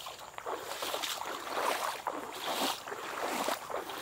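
Footsteps wading through shallow marsh water and tall wet grass, a splash and swish with each step at a steady walking pace.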